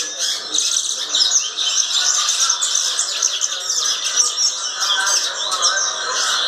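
Double-collared seedeater (coleiro) singing a rapid, continuous, strong song of quick chirping notes, the 'chuva mexida' song type.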